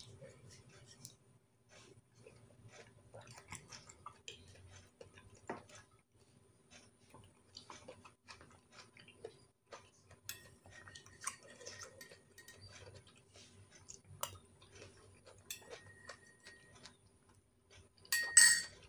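Close-up eating sounds: soft chewing with many small clicks and taps, like a spoon against a plate, and a louder brief sound near the end.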